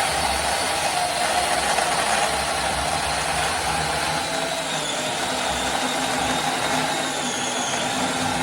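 A 26-volt cordless 4-inch mini chainsaw running under load, its chain cutting through a piece of wood. It makes a steady motor whine that sags slightly in pitch as it works through the cut.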